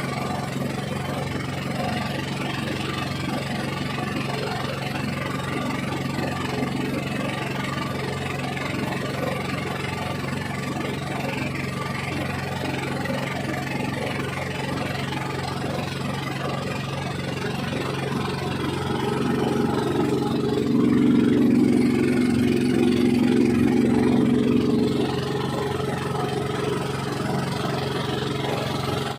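A boat's motor running steadily. About two-thirds of the way in it grows louder for roughly four seconds, then settles back.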